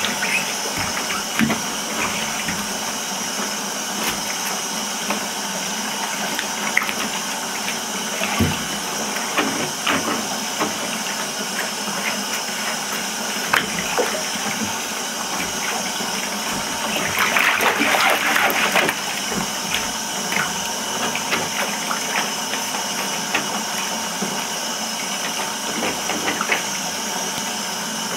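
Water running steadily into a bathtub, with soft splashes now and then as sneakers shift in the foamy water. A longer, louder bout of splashing comes a little past halfway.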